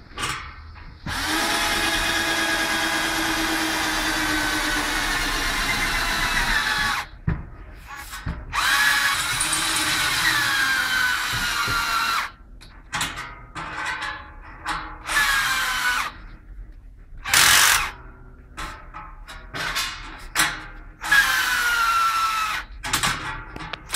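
Electric drill boring a hole. It runs in one long spell of about six seconds, then in a string of shorter bursts, its motor whine dropping in pitch as it slows at the end of several of them.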